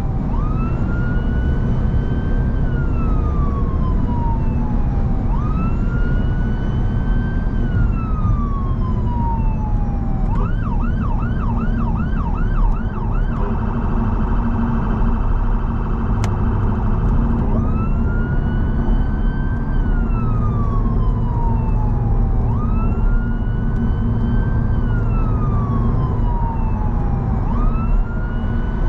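Emergency vehicle's electronic siren heard from inside the vehicle, running a slow wail that rises quickly and falls over a few seconds. About ten seconds in it switches to a fast yelp, then to a rapid warble for a few seconds, and then goes back to the wail. Steady engine and road noise runs underneath.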